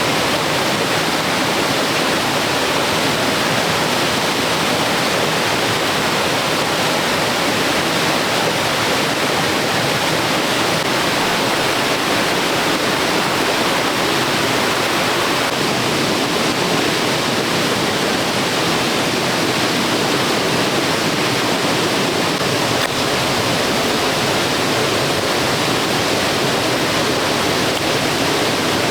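Steady rushing water, an even unbroken roar that does not change.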